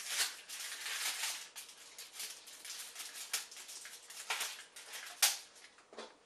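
Parchment paper rustling and crinkling against a PVC pipe as a rubber band is stretched and wound around it, with several short sharp clicks, the loudest about five seconds in.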